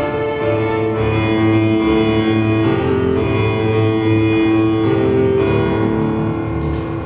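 Cello playing a slow melody of long bowed notes over piano accompaniment.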